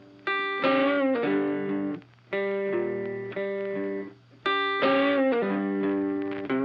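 Background music: an electric guitar playing held notes and chords, some bent in pitch, with two brief breaks.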